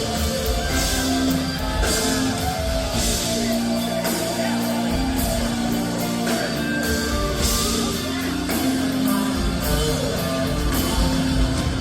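Live band playing an instrumental passage, with guitar, held chords, a bass line and repeated cymbal washes.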